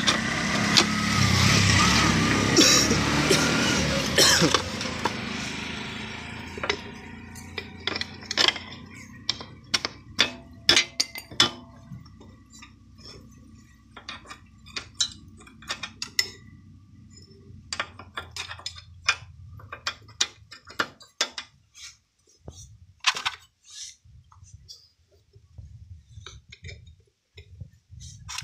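Scattered sharp metallic clinks and knocks of hand tools and loose metal parts as a motorcycle rear wheel is refitted: axle, brake parts and nuts being put back and tightened. A loud, even rushing noise fills the first few seconds and fades out about six seconds in.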